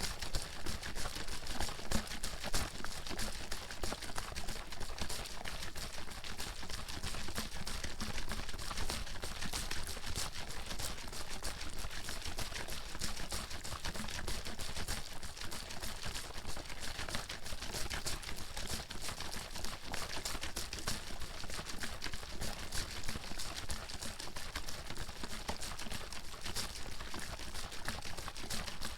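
Water sloshing in a bottle being shaken steadily: a fast, continuous rattle of splashes and knocks with no break.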